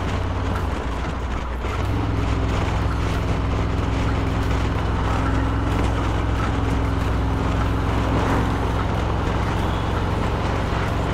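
Harley-Davidson Low Rider S V-twin motorcycle running at cruising speed. The engine note shifts about two seconds in, then holds steady.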